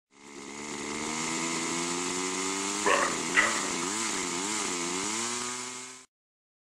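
Intro sound effect: a buzzing, motor-like drone that fades in, holds steady, then wavers up and down in pitch, with two short sharp sounds about three seconds in. It cuts off suddenly near the end.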